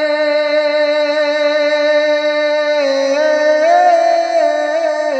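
Background music from a Punjabi song: one long note held steady, then a short wavering, ornamented melody line.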